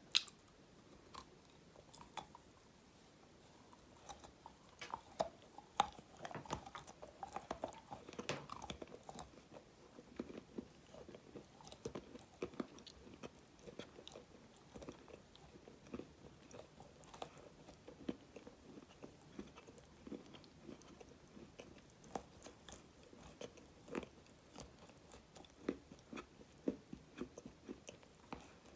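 Close-miked wet mouth sounds: lip smacks, licking and biting at a dark stone-like chunk held to the lips, a steady run of sharp clicks, busiest in the first third and again near the end.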